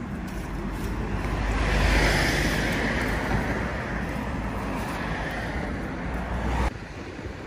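Road traffic: a vehicle passing close by, rising to its loudest about two seconds in, then a steady rumble that cuts off abruptly near the end.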